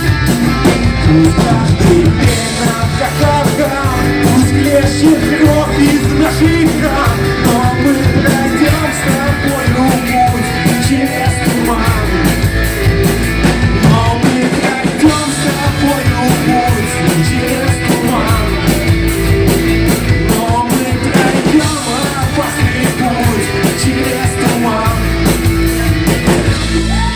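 Live rock band playing loud and steady, with drums and guitars and a singing voice over them.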